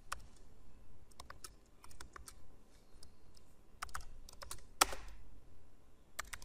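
Computer keyboard typing: clusters of key clicks with short pauses between them, one key strike louder than the rest about five seconds in.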